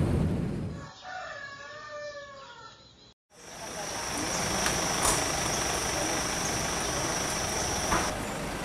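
Airliner's landing-roll rumble fading out in the first second, then a rooster crowing once for about two seconds. After a sudden cut comes steady outdoor background noise with a thin, high, steady whine.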